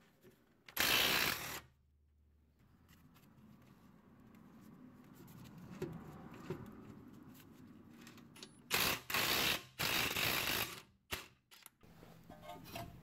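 Cordless impact wrench with a 19 mm impact socket hammering on the brake caliper bracket bolts in short bursts, working them loose. There is one burst about a second in, two longer bursts around nine to ten seconds in, and a couple of brief blips after.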